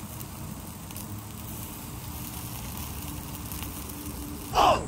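Yakiniku meat sizzling on a wire grill over charcoal, a faint even hiss. Near the end comes a short, loud falling swish.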